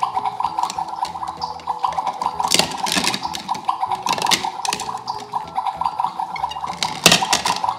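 A toy kitchen's electronic water sound effect plays as a steady, fast-pulsing tone while plastic toy food is handled, with several sharp clicks and knocks of plastic on plastic.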